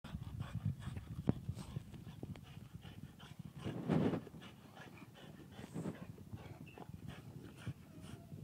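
Bulldogs panting and snuffling as they play, with many small clicks and taps from paws and claws on wooden decking. A louder short huff of breath comes about four seconds in.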